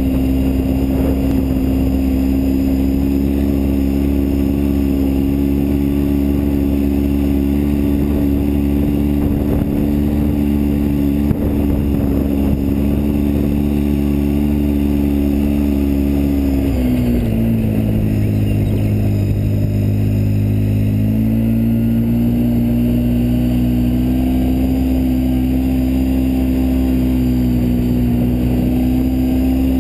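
Side-by-side utility vehicle's engine running steadily on the move over a dirt track. About halfway through its pitch drops, holds low for a few seconds, then climbs back.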